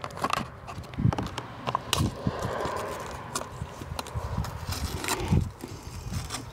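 Cap being twisted off a plastic motor-oil bottle and the seal in its neck picked off with gloved fingers: a run of small plastic clicks, taps and crinkles.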